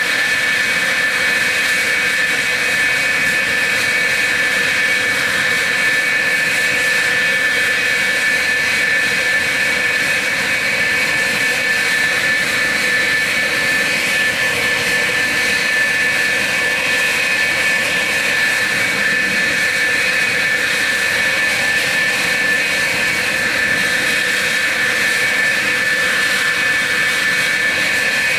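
F-4F Phantom's General Electric J79 turbojets idling on the ground: a steady jet roar with a high, unchanging whine.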